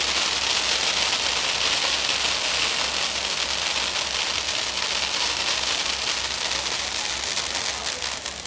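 Firecrackers bursting on the ground in rapid succession, a dense continuous crackle that thins into more separate pops near the end.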